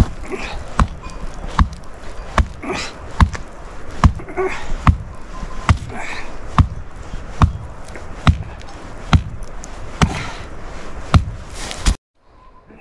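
Footsteps walking at a steady pace, a heavy thud about every 0.8 s, cutting off suddenly near the end.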